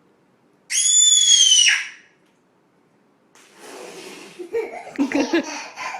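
A baby shrieking with laughter: one very high-pitched squeal, about a second long, shortly after the start, then a breathy rush and choppy belly laughs in the last couple of seconds.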